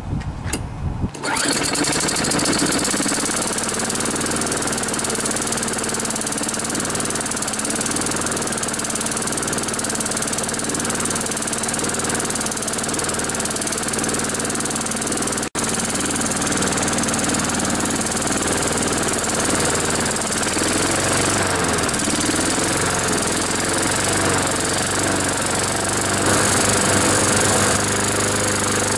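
A Craftsman push mower's 6.5 hp Tecumseh single-cylinder four-stroke engine starts about a second in and runs steadily on its test run after an oil seal repair. In the second half its speed wavers and rises as the governor spring bracket is bent to rev it up.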